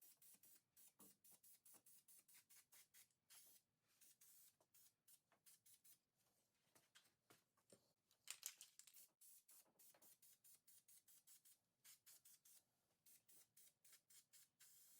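Near silence with a very faint hiss of an aerosol can of self-etching primer being sprayed, coming through as short repeated pulses, about three or four a second.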